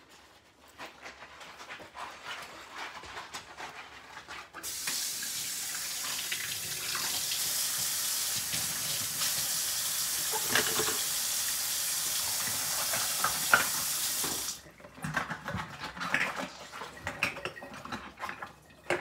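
Kitchen tap running into a stainless steel sink, turned on about five seconds in and shut off sharply about ten seconds later. Scattered light knocks and scrubbing from a metal box grater being washed with a sponge are heard before, during and after the running water.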